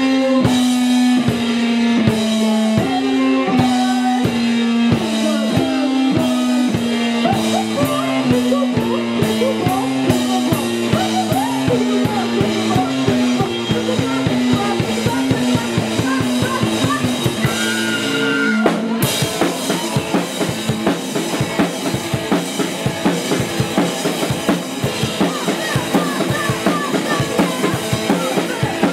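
Live rock band playing with guitar and drum kit on a steady beat, under a line of notes stepping slowly downward. About two-thirds of the way in, the line stops abruptly and the music switches to fast, dense drumming.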